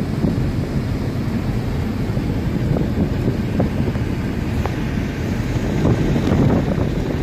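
Steady tyre and wind noise inside a Toyota sedan's cabin, the car coasting in neutral at highway speed.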